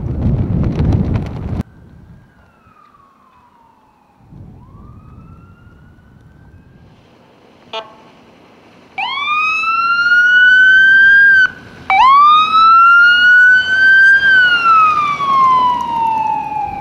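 Emergency vehicle siren wailing, faint at first and then loud, its pitch rising and falling slowly; it breaks off briefly about two-thirds of the way through. Wind blows on the microphone for the first second or so.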